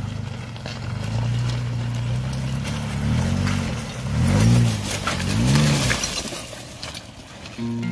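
Toyota FJ Cruiser's V6 engine revving, its pitch rising and falling three times, over a crackling, crunching noise.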